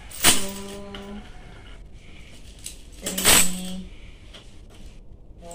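Coins clinking as five-peso coins are handled and dropped into a plastic bag. There are two loud clinks, one about a quarter second in and one about three seconds in.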